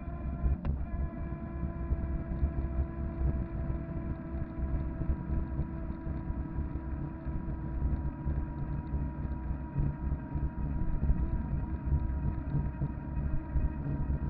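Electric fatbike's 250 W, 48 V motor whining steadily while riding, a stack of held tones over a heavy low rumble of wind buffeting the microphone. A single click about half a second in.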